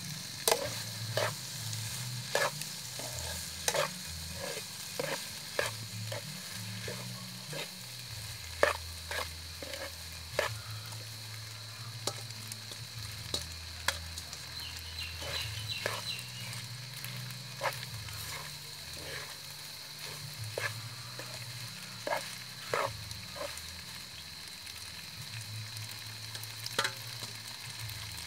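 Food sizzling in a frying pan while boiled macaroni is tipped in from an aluminium bowl, with irregular sharp clicks and scrapes of a metal spatula against the bowl and pan.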